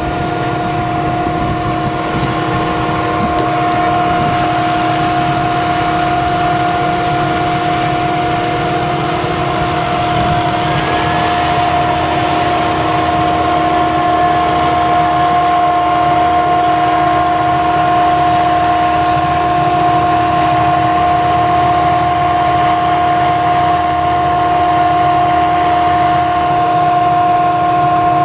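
Claas Jaguar 970 self-propelled forage harvester chopping sorghum: a steady loud machine drone with a high whine held on one pitch, growing slightly louder as the harvester and its trailer tractor come closer.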